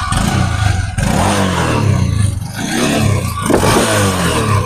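Honda CB300F Twister's single-cylinder engine revved in several throttle blips, heard close up at the exhaust outlet; the pitch rises and falls with each blip. It runs muffled at light throttle and sounds loud and full-bodied when the throttle is opened.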